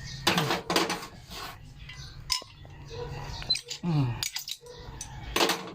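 Metal hand tools clinking and scraping against copper refrigerant tubing and fittings, in irregular short clicks and rubs.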